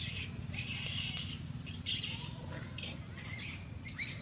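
Long-tailed macaques screaming during a fight: harsh, high-pitched shrieks about once a second.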